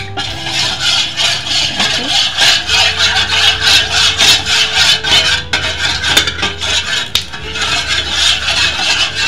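Metal spoon stirring a thin coconut-milk mixture in a metal pot, scraping round the pot in quick rhythmic strokes, about three a second.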